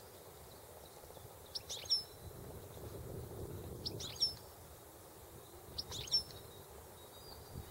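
European goldfinch giving three short, high twittering calls about two seconds apart, over a faint low rumble of background noise.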